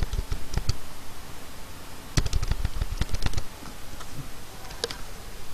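Computer keyboard keys pressed in quick runs of clicks: a short burst at the start, a longer run about two to three and a half seconds in, and a single click near the end.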